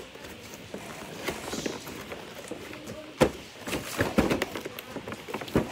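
Scattered knocks and clicks of a toy set's packaging and plastic pieces being handled, the sharpest about three seconds in.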